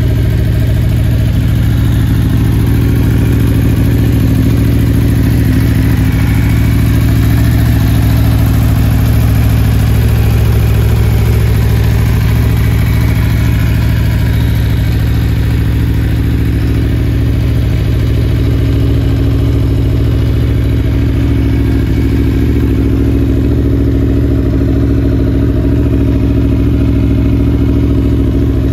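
Aprilia Tuono V4 1100 Factory's 65-degree V4 engine idling steadily through an Akrapovic exhaust.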